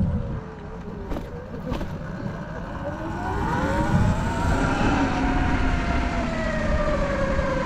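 Sur-Ron electric dirt bike's motor and belt drive whining while riding, the pitch falling at first, then rising and gliding as the bike picks up speed from about three seconds in, over wind rumble on the microphone. There are two short clicks about a second in. The belt is making a louder noise than it should, which the rider thinks may be dirt or water buildup.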